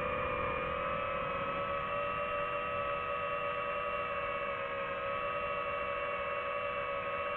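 Quadcopter drone's motors and propellers whining steadily as it hovers, several close pitches at once that drift slightly about half a second in.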